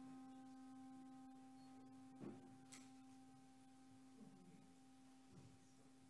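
A brass handbell's tone ringing on faintly and slowly dying away, with a few faint knocks and shuffles about two seconds in and again near the end.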